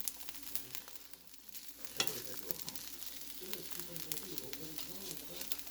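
Food frying in a pan: a steady sizzle with scattered crackles and pops, one sharper pop about two seconds in.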